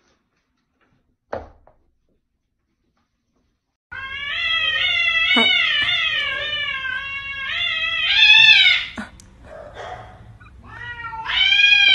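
A cat yowling at another cat in a standoff: one long wavering call of about five seconds, then after a short lull a second call near the end. A single short knock sounds about a second in.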